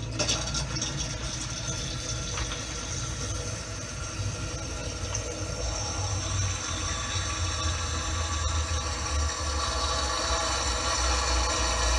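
Samsung Waterwall dishwasher running, with water spraying and splashing inside over a low motor hum, slowly growing louder.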